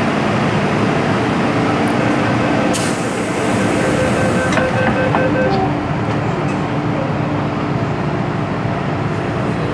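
MTR M-Train electric multiple unit heard from inside the car as it pulls away from a station: a steady loud rumble of running noise with faint steady whining tones. A brief sharp hiss comes about three seconds in.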